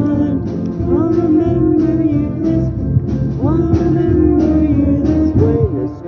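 A live student band playing a pop-rock song, with singing over guitar and a steady beat.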